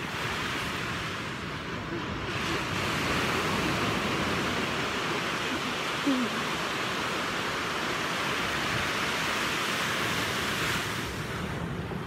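Ocean surf washing onto a sandy beach: a steady hiss that swells about two seconds in and eases near the end.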